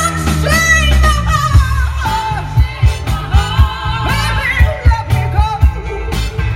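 A singer and live band performing a song: a sung voice with strong vibrato over a steady drum beat and bass.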